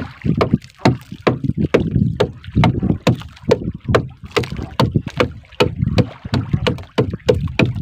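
Quick, irregular knocks and splashes against a small wooden fishing boat's hull, about two or three a second, with water sloshing alongside.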